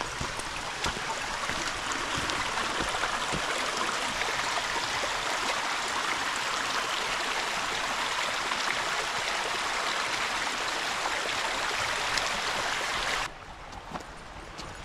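Shallow rocky forest stream running over stones, a steady rush of water close by; it cuts off suddenly near the end.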